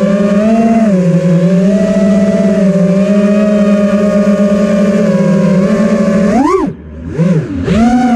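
FPV racing quadcopter's motors running at a steady pitch with small dips and rises. About six and a half seconds in the throttle is chopped and punched: the pitch swoops sharply up and falls away several times, with brief drops in loudness.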